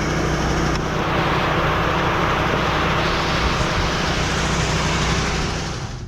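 A steady engine runs under a loud rushing hiss of wheat seed pouring from the seed tender's conveyor into the planter. The hiss cuts off near the end.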